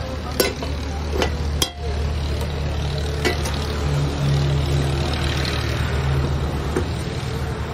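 Street-kitchen cooking ambience: a steady low engine hum under sharp metal clinks of utensils on karahi woks in the first few seconds, with a hiss that swells and fades in the middle.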